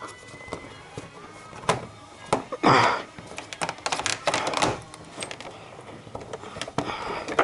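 Hands working car parts loose: a run of sharp clicks and knocks, with a loud scraping crunch about three seconds in and a quick cluster of clicks just after.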